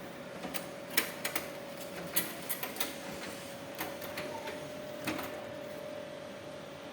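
Irregular clicks and clacks from the reject cassette of a cash recycling machine being handled and unlatched, coming thickest in the first half, over a steady faint hum.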